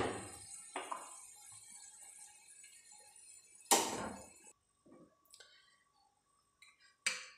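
Sizzling in a wok dying away after the gas flame is turned off, then a single clink of a glass lid against the wok about four seconds in. Near the end a spoon knocks briefly as food is served onto a plate.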